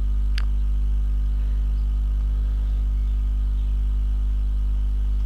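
Steady low electrical hum with buzzing overtones that holds unchanged throughout, with one short click about half a second in.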